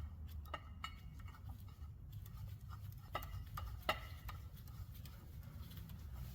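Scattered light metallic clicks and taps as bolts and hand tools are handled against the engine's adapter plate, the sharpest a little after three and almost four seconds in, over a low steady hum.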